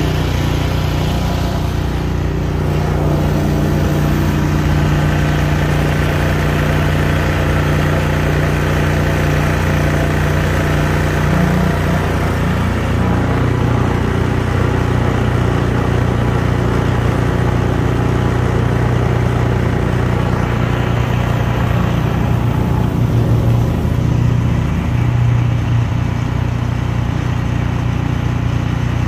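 A large engine running steadily under load, its pitch dropping a little about twelve seconds in.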